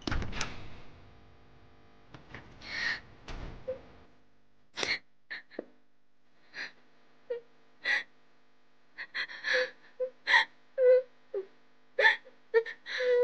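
A young woman sobbing: short gasping, hiccuping in-breaths and whimpers in quick succession, more frequent and louder towards the end, after a brief noisy burst at the very start.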